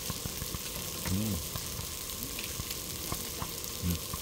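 Pork neck sizzling on a small tabletop grill, a steady hiss with a few light clicks. A short low voiced hum about a second in.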